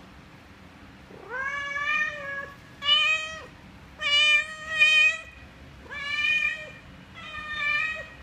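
Nursing mother cat meowing repeatedly to her kittens: five drawn-out, level-pitched meows, the middle one a double call.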